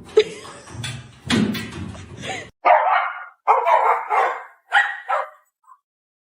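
A dog barking: four short barks spaced about half a second apart in the second half, after a couple of rustling, noisy sounds.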